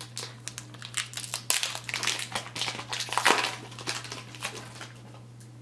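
Wrapper of an Upper Deck Series 1 hockey card pack crinkling as it is handled and torn open, with rapid crackles that die down about four and a half seconds in.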